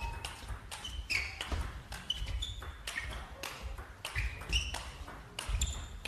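Table tennis rally: the celluloid ball clicks sharply off the rackets and the table in quick succession, with short high squeaks of the players' shoes on the court floor in between.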